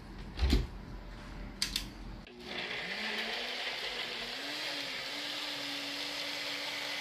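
Personal bullet-style blender pureeing boiled tomatillos, chiles and garlic into salsa verde. A couple of knocks as the cup is handled on the base. About two seconds in, the motor starts, its whine rising in pitch as it spins up, then runs steadily.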